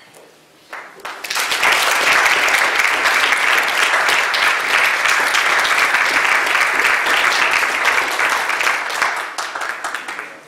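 Audience applauding: a few claps about a second in swell quickly into steady, full applause, which thins slightly near the end before cutting off suddenly.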